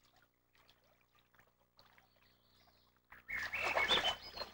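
A common loon dives under the lake surface, with a burst of splashing water about three seconds in after faint quiet water sounds.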